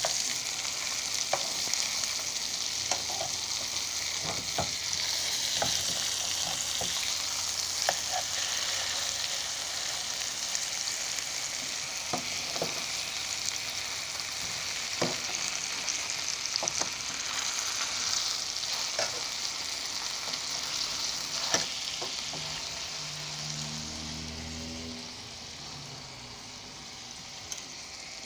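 Boneless skinless chicken breasts sizzling as they fry in melted butter in a skillet, with a few sharp taps and clicks. The sizzle eases and grows quieter about three seconds from the end.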